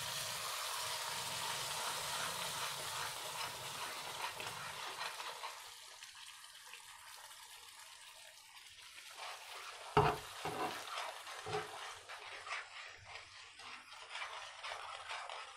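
Tomato puree sizzling as it hits hot oil in a kadai, the sizzle loudest at first and dying down over several seconds. A spoon then knocks and scrapes on metal as the puree is scraped in and stirred, with one sharp knock about two-thirds of the way through.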